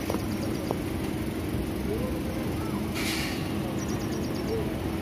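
A stationary electric multiple-unit passenger train standing with its equipment running: a steady hum with a constant low tone. A brief hiss comes about three seconds in.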